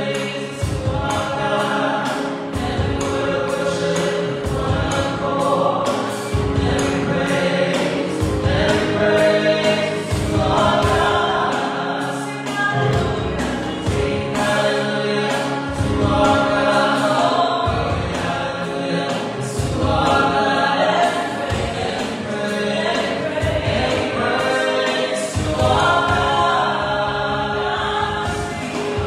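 A worship team of several singers with keyboard accompaniment performs a song live, with a steady low beat underneath.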